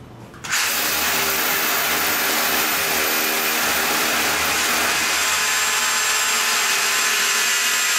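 Cordless power drill with a dust-collector attachment boring into a wall, starting about half a second in and then running loud and steady.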